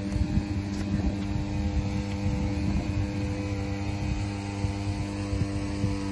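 A steady mechanical hum made of several constant tones, with low rumbling noise, like wind buffeting the microphone, underneath.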